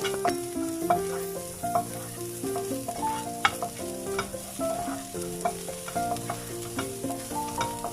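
Onions sautéing in a frying pan: a faint sizzle with sharp clicks of a spatula stirring against the pan, under a background melody of steady notes.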